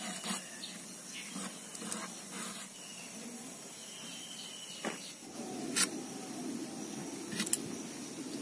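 Ridge gourd being sliced against a boti, an upright curved iron blade: scattered soft cutting clicks and scrapes over a steady faint hiss, with a low rustle of handling from about five seconds in.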